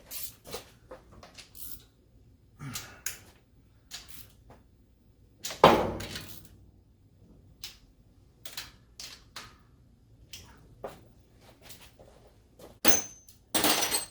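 Irregular metallic clicks and knocks of hand tools and parts being handled and tightened under the hood, with a loud clunk about six seconds in and a few more near the end.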